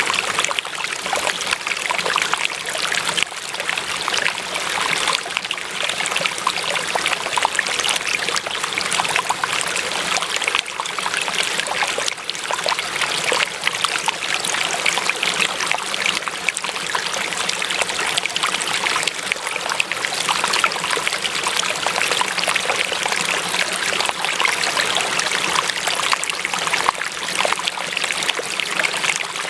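Running water trickling and babbling steadily, a dense patter of small splashes with no pause or change.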